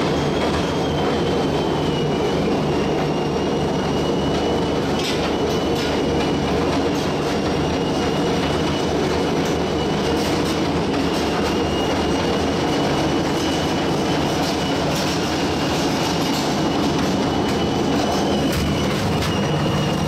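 Industrial household-appliance shredder running, a steady heavy mechanical drone with a thin high squeal held throughout, as a refrigerator is fed down the chute toward its rotary cutters. A few sharp clanks stand out, around five seconds in and again near fifteen seconds.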